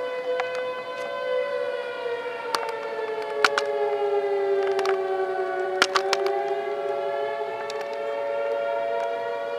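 Several outdoor tornado warning sirens, among them a Federal Signal 3T22 and an STH-10B, sounding steady tones together as a chord. One tone sags lower around the middle and climbs back. A few sharp clicks from the tripod come over it.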